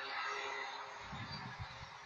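A drawn-out, horn-like droning tone of the reported 'sky trumpet' sound, fading away in the first second, followed by a few low rumbles.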